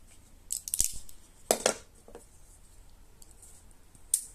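Folding knives being handled and moved on a hard surface: a few sharp metallic clicks and light clatters, in a cluster about half a second in, again at about a second and a half, and once more near the end.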